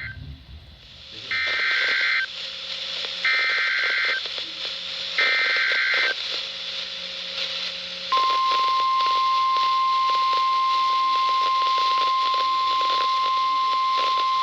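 NOAA Weather Radio Emergency Alert System SAME header: three buzzy digital data bursts, each about a second long and about a second apart. About eight seconds in comes the steady 1050 Hz warning alarm tone, over radio hiss. Together they announce a new warning being broadcast.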